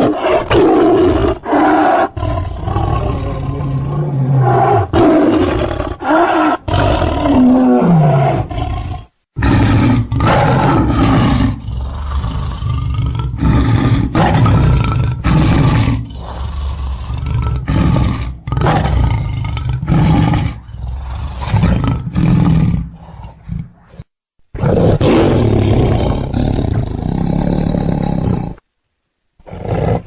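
Tiger roaring loudly over and over, in long deep bouts broken by a few sudden silent gaps.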